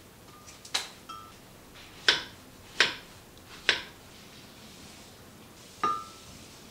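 Kitchen knife slicing an apple on a wooden cutting board: a run of sharp knocks as the blade goes through the fruit onto the board, roughly one a second, then a single ringing clink near the end.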